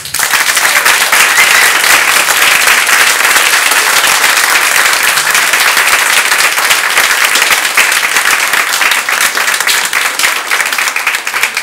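An audience of over a hundred people clapping together in a sustained round of applause. It starts at once, holds steady and thins a little near the end.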